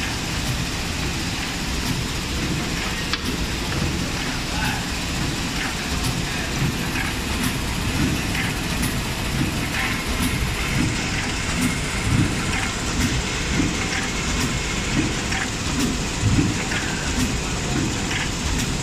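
Automatic zipper-pouch form-fill-seal packing machine running: a steady mechanical din with a low pulsing and sharp clicks from its clamping and sealing stations, repeating about every two-thirds of a second.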